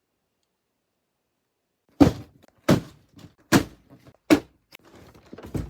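Four hard thuds about three-quarters of a second apart, the first the loudest, followed by lighter knocks and rustling near the end.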